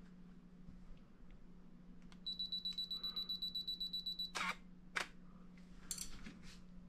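Canon 5D Mark II DSLR's self-timer beeping rapidly in its final countdown, a high electronic beep about eight times a second for two seconds. Its shutter then fires, two sharp clicks about half a second apart, with a few fainter clicks after.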